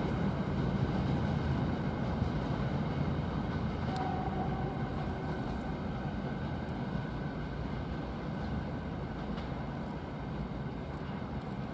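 Freight train wagons rolling away on the rails: a steady low rumble of wheels on track that slowly fades as the train recedes.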